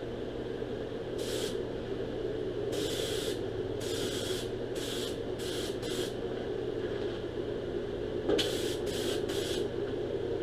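Compressed-air paint spray gun spraying a coating in short trigger bursts: about nine separate hisses, each under a second. A steady low hum runs underneath.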